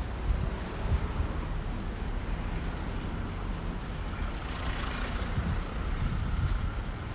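Street traffic: a motor vehicle passing over a steady low rumble, its rushing hiss swelling and fading a little past the middle.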